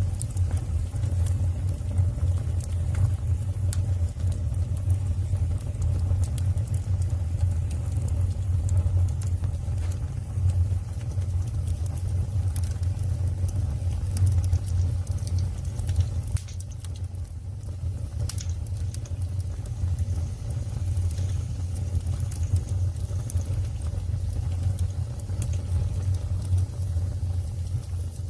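Firewood fire burning: a steady low rumble of the flames with scattered sharp crackles and pops from the burning wood.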